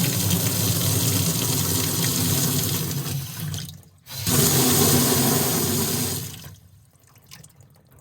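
Water running hard from a faucet just reopened after new washers were fitted, with air spitting through the line. The flow stops for a moment just before four seconds in, comes back, then is shut off about six and a half seconds in.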